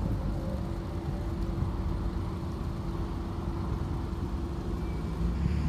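Ferrari 458 Italia's V8 engine running at steady revs as the car rolls slowly, heard from a distance, with one steady note over a low rumble.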